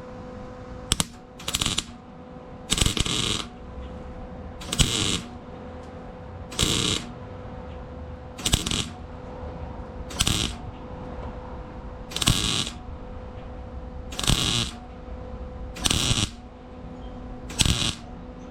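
A MIG (wire-feed) welder laying short tack welds on thin sheet metal to fill holes. There are about ten crackling bursts of about half a second each, roughly every two seconds, over a steady hum.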